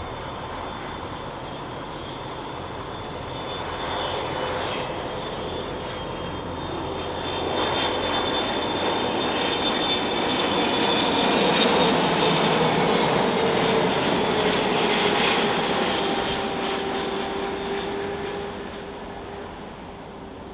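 Boeing 777-300ER's GE90 jet engines going past on landing: a rush and whine that build to a peak about twelve seconds in, then fade, the whine sinking slightly in pitch.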